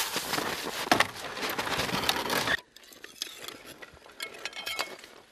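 Boots crunching on packed snow with knocks as blocks of lake ice are handled onto a wooden sledge. About two and a half seconds in, the sound drops suddenly to quieter, light clinks and scrapes of the ice being shifted on the sledge.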